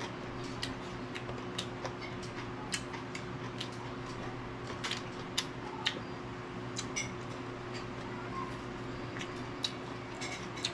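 Irregular sharp clicks and small crunches from eating green vegetables, heard over a steady low hum.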